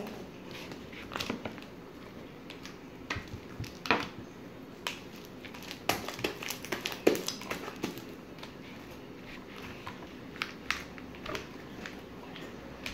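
Homemade fluffy slime, made of glue and shaving cream activated with Tide, being squeezed and stretched in the hands, giving irregular small clicks and pops.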